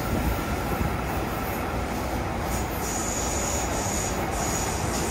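JR Kyushu 305 series electric train running through a subway tunnel, heard from inside the car: a steady rumble of wheels and running gear. From about halfway, a high wheel squeal comes and goes.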